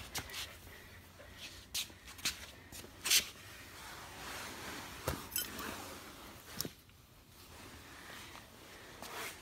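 Quiet room with scattered light clicks and soft scuffles: a Samoyed puppy's claws and paws on a tile floor as it moves about.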